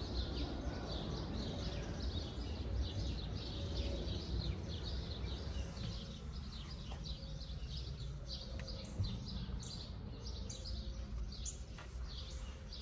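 Many small birds chirping: a busy stream of short, high chirps over a low steady background rumble.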